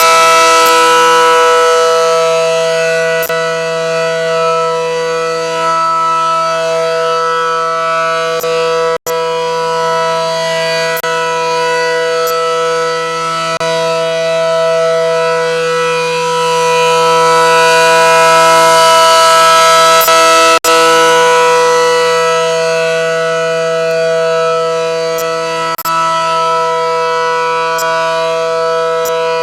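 Allertor outdoor warning siren holding its steady alert tone during a test, the loudness swelling and fading slowly. The sound cuts out briefly twice, from the recording camera dropping audio.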